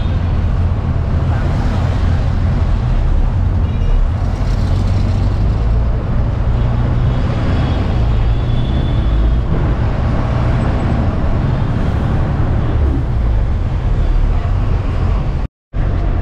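Steady low rumble of a moving road vehicle with street traffic around it. The sound drops out for a moment near the end.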